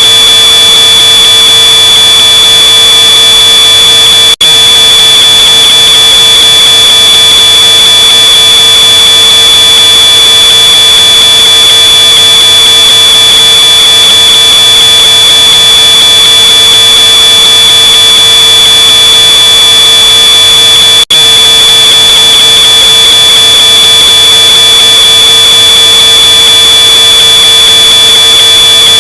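Smoke alarm sounding one continuous high-pitched tone, boosted until very loud and heavily distorted. There are two split-second dropouts, about four seconds in and about twenty-one seconds in.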